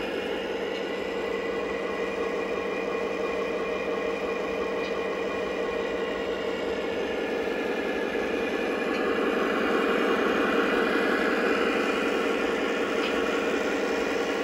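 Lionel O gauge Fairbanks-Morse Trainmaster model locomotive's onboard sound system playing a steady diesel engine idle rumble while the model stands still, growing a little louder about two-thirds of the way through.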